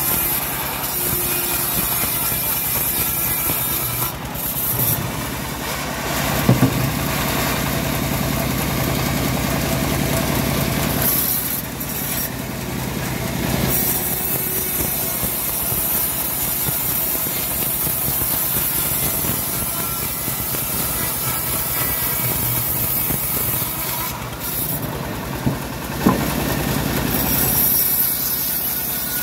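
Homemade vertical bandsaw mill sawing a dry teak log lengthwise: the band blade running through the wood over the steady drone of the machine. The sound changes a few times as one cut ends and the log is drawn back and fed through again.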